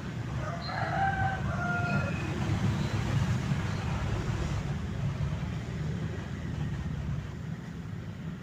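A rooster crowing once, a short stepped call about a second in, over a steady low rumble.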